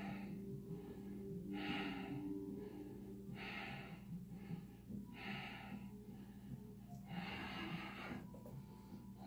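A person's audible yoga breathing: five hissing breaths in a steady rhythm, about one every one and a half to two seconds, the last one longer, near the end.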